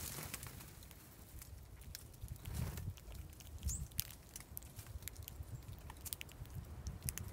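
Female red-winged blackbirds pecking and cracking seed in a stone feeder basin: irregular light clicks and taps. A brief flutter of wings comes about two and a half seconds in, and a short high chip a little later.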